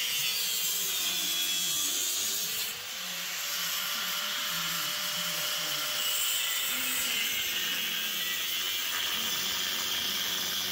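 Angle grinder with a cut-off disc cutting through a steel bike frame: a steady, high grinding hiss that dips briefly about three seconds in, then carries on.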